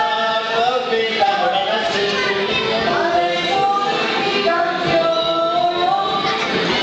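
A group of voices singing a song together, holding long notes that rise and fall.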